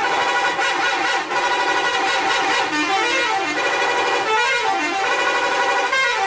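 Bus 'telolet' horn: a set of multi-tone air horns playing a quick melody of notes that step up and down, sounding loudly without a break.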